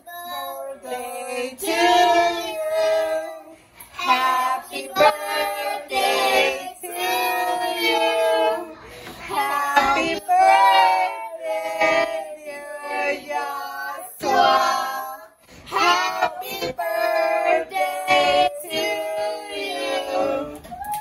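Voices singing a birthday song to a child in front of a lit cake, phrase after phrase with short breaks between.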